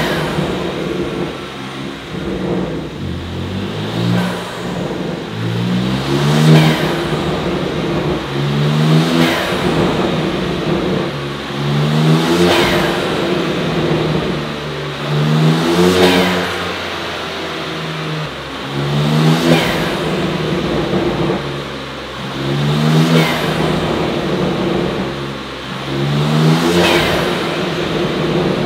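BMW M3 Competition G80's twin-turbo straight-six, fitted with an Eventuri intake and an Aulitzky exhaust, revved again and again, about every three and a half seconds. Each rev climbs quickly in pitch and drops back, with a high whistle falling away after it.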